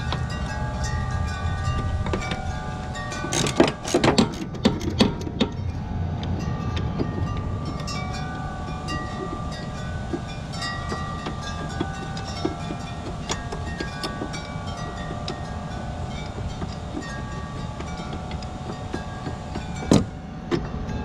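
Ratchet and socket clicking and clinking as bolts on the underside of a Honda HRX217 mower deck are worked loose, in a cluster about 3 to 5 seconds in, with one more sharp knock near the end. Under it runs a steady low rumble, with scattered short ringing tones.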